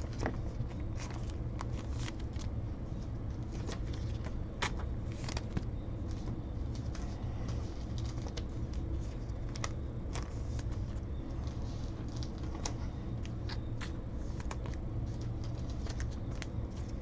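Light, irregular clicks and ticks of trading cards and foil packs being handled on a table, over a steady low hum.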